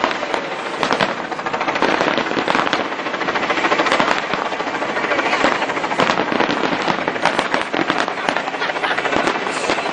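Fireworks display: a dense, continuous run of rapid cracks and bangs from many shells bursting at once.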